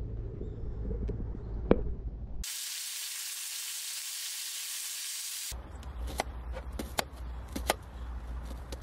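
Wind rumbling on the microphone, then skewered meat sizzling on a grill plate over a portable gas stove as an even hiss, then a knife chopping onion on a cutting board in scattered sharp knocks.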